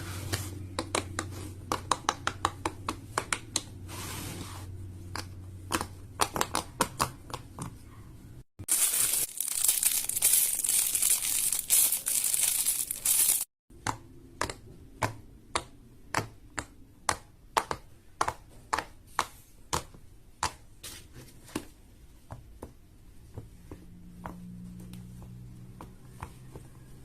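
Fidget toys handled and clicked in a run of short clips: rows of sharp clicks, two or three a second. In the middle, about five seconds of crinkling and crackling.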